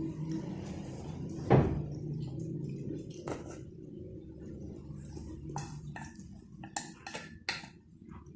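Close-up eating sounds: short wet mouth clicks and smacks of chewing, with a loud knock about a second and a half in, over a steady low hum.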